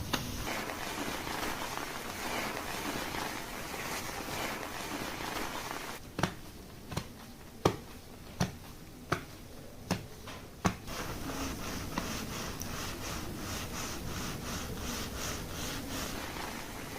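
Hands rubbing and massaging hair and scalp during a hair wash. Partway through come a string of sharp taps about one every three-quarters of a second, then rhythmic rubbing strokes a few times a second.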